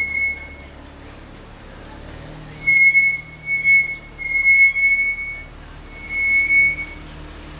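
Car brakes squealing as the car creeps forward and stops: a high squeal at one unchanging pitch, heard four times for up to about a second each, over the low steady rumble of the idling engine.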